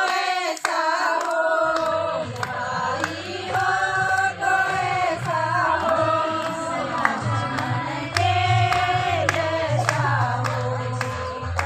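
A group of women singing a devotional hymn together in long, held phrases, with a low steady hum underneath from about two seconds in.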